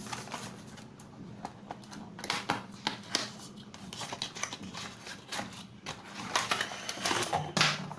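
Cardboard retail box and plastic packaging being handled and opened: irregular clicks, scrapes and crinkly rustling as the inner plastic tray is slid out of the cardboard sleeve, busiest in two spells.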